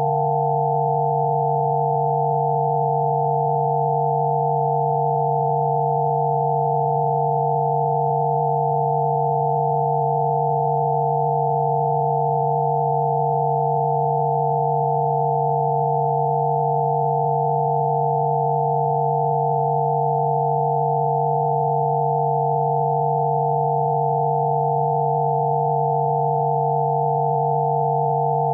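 Steady electronic sine tones of a Rife-frequency therapy track. One low tone and a cluster of several higher tones sound together, held at an even level without any change.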